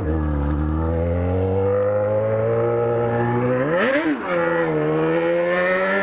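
Yamaha XJ6's 600 cc inline-four engine held at a raised idle that creeps slowly upward. About four seconds in it gets a quick throttle blip that rises and falls back, then it holds steady again.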